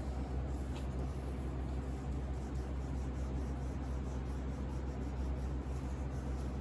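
A cloth pad rubbing shellac-and-silica filler into the wood corners of a piano case: faint, irregular scrubbing strokes over a steady low hum.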